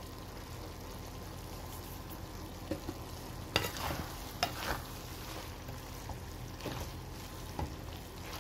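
Shredded cabbage and beef being stirred in a pot over low frying sizzle, with a scattering of sharp scrapes and knocks of the utensil against the pot from about three seconds in.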